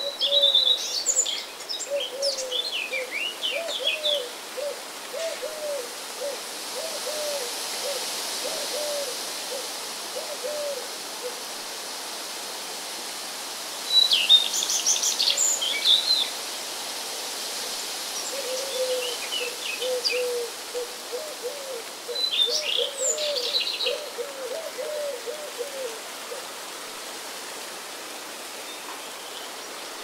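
Birds calling: a long, even series of low hooting notes runs twice, and short bursts of high chirping come between them, over a steady background hiss.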